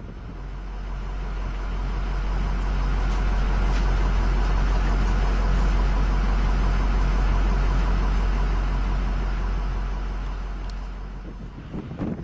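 Freight train of autorack cars rolling past: a steady low rumble and rushing noise that swells over the first few seconds and fades near the end.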